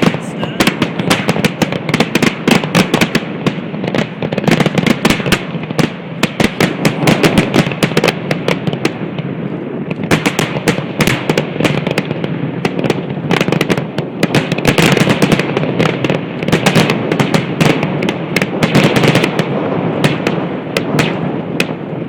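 Fireworks going off in a dense, continuous barrage of bangs and crackles, many reports a second.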